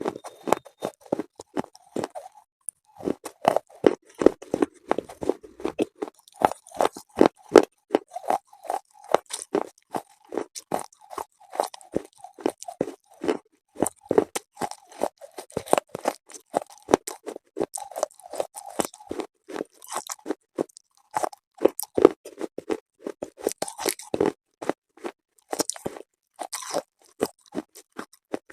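Biting and chewing brittle, chalk-like mineral pieces: rapid sharp crunches, several a second, with a brief pause about two seconds in.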